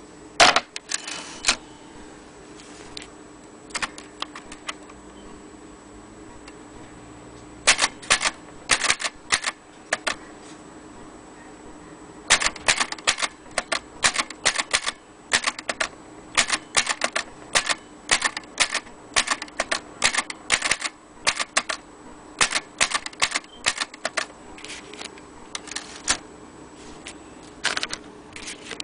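Keys of a vintage Imperial Good Companion 3 manual portable typewriter being typed, sharp clacks in irregular bursts. There are a few strokes at first, then longer, faster runs of typing through the second half.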